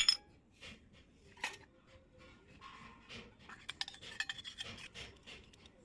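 Small pieces of a miniature toy kitchen set being handled: sharp little clicks and clinks, with light rubbing and a quick run of small clicks in the middle.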